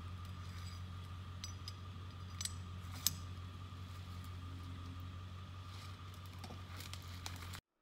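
A few light metallic clinks, the loudest about three seconds in, from a steel logging choker and its shackle being handled while the choker is set around a log. A steady low hum runs underneath.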